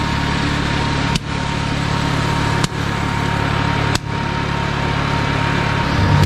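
Small engine of a hillside monorail car running steadily while it climbs the slope, broken by three very short gaps.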